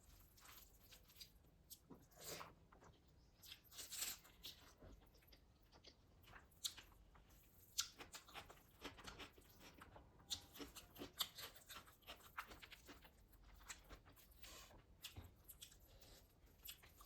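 Faint eating sounds from chicken biryani: chewing and crunching with many scattered soft clicks and crackles.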